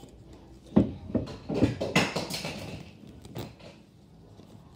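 A handful of knocks and thuds from things being handled and set down, with a brief rustle in the middle. The loudest is a sharp knock about a second in.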